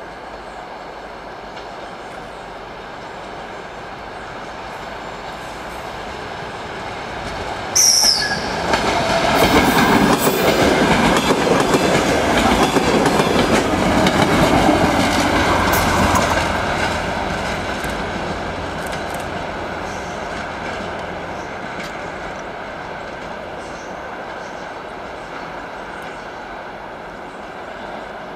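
DR1A diesel multiple unit passing by. Its diesel engine and wheels grow steadily louder as it approaches. There is a brief shrill note about 8 s in, then a loud clatter of wheels over the rails as the cars go by for about eight seconds, before the sound fades slowly as the train moves away.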